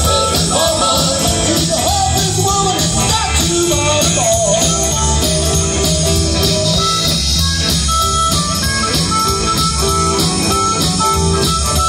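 Live blues-rock band playing with a steady drum beat, bass, electric guitar and keyboard. A sung lead line runs over the first half, and short held harmonica notes come in toward the end.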